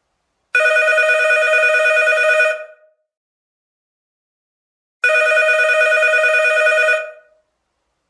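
Old-style telephone bell ringing: two rings of about two seconds each, the second starting about four and a half seconds after the first, each with a rapid trill.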